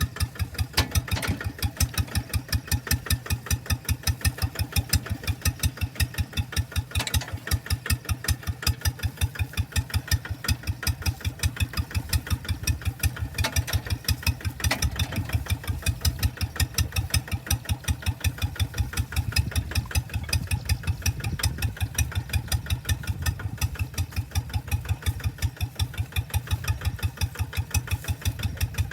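Single-cylinder engine of a two-wheel hand tractor idling steadily, a slow, even chug of about four to five firing beats a second.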